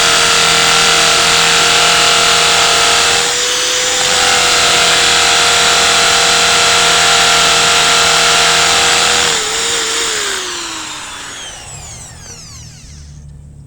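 Electric drill motor running steadily at full speed while drilling a pilot hole for a screw, easing briefly a little over three seconds in. About nine seconds in the trigger is let go and the motor spins down, its whine falling in pitch and fading.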